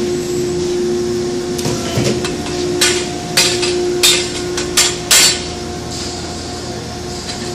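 CNC push bending machine running with a steady hum while bending 25 mm metal pipe, with a quick series of about five sharp metallic clanks in the middle.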